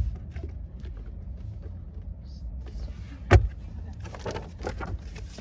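Rummaging through belongings: one loud thump a little over three seconds in, then a few smaller clicks and knocks, over a steady low rumble.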